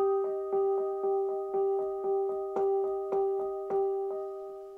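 Digital piano played alone: chords struck about twice a second over a held note, the last chord dying away near the end.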